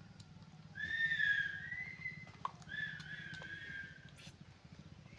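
Two long whistled notes, each lasting over a second, with a short gap between them; the first rises slightly in pitch near its end. A few faint clicks fall between and after them.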